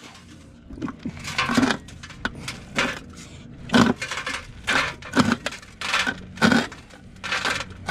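Small PE-100x150 jaw crusher turned by hand, its jaws cracking a piece of rock: a dozen or so sharp cracks and crunches at irregular spacing, about two a second.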